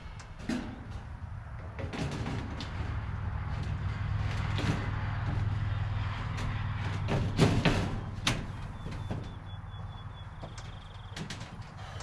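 Knocks and clatter of a steel siding panel being handled and fastened against the barn's gable framing, the loudest knocks about three quarters of the way through, over a steady low hum.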